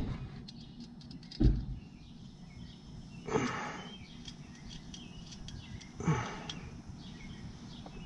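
Birds chirping faintly, with three brief bumps and rustles from hands working around the compressor; the loudest is a low thump about a second and a half in.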